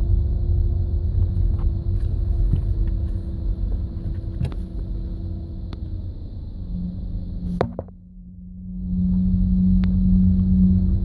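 Low rumbling growl from the front end of a 2009 Audi A3 Sportback 2.0 TDI, the groan that comes at low speed with the steering near full lock while in gear and stops when the clutch is pushed in; the cause is still unknown after a new steering rack, wheel bearing, discs and pads. A click about eight seconds in is followed by a brief drop in the drone, which then comes back at full level.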